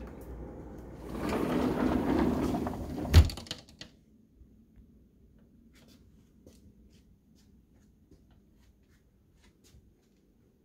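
A balcony sliding door rumbling along its track for about two seconds and stopping with one sharp thunk, then near quiet with a few faint ticks.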